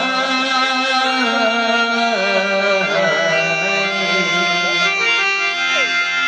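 Instrumental Gujarati folk music: a sustained melody instrument plays held notes that step from one pitch to another and slide in places.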